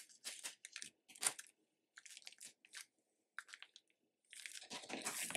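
Faint crinkling and rustling of paper tea-bag wrappers and tape being handled and pressed into place, in short scattered crackles that come thicker near the end.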